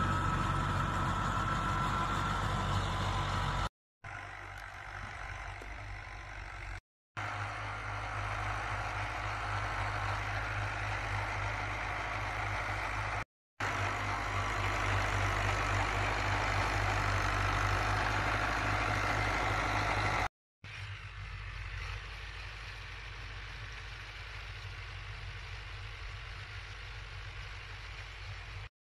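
Tractor diesel engine running steadily under load while pulling a rotary tiller, cut off by brief silent gaps several times and quieter in the stretches where it is farther away.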